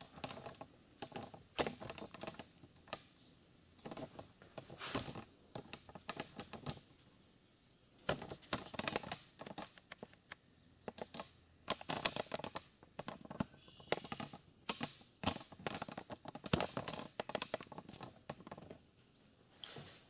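Irregular light clicks and clatter of hands working with small metal hardware and tools, coming in clusters with short pauses between.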